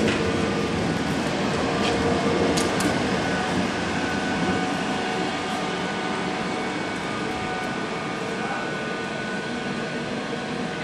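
Gotha T2-62 tram rolling slowly over the depot tracks: a steady rumble of wheels and running gear with a faint hum, and a few short clicks about two to three seconds in.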